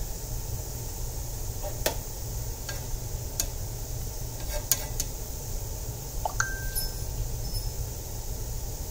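Pot of baking soda water bubbling on the stove, with scattered light pops and one ringing clink about six and a half seconds in, over a steady low hum.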